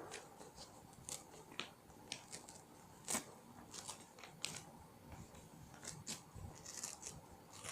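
A folded sheet of A4 paper being torn by hand along the crease: faint, irregular crackles and rustles of paper.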